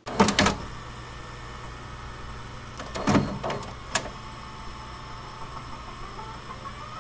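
VCR-style tape playback effect: a few sharp mechanical clicks and clunks over steady tape hiss and a low hum. Near the end a thin tone slowly rises in pitch.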